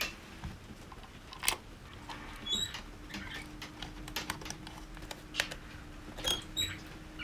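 Scattered light clicks and taps from hands handling a plastic compass bracket and a small screwdriver working its fixing screws, a few seconds apart, with a couple of brief tiny squeaks.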